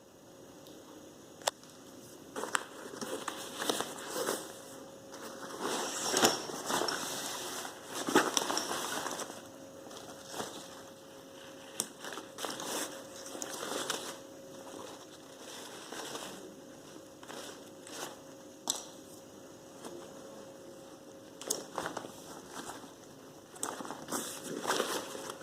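Synthetic rucksack fabric being handled: irregular rustling and crinkling, broken by scattered sharp clicks and knocks.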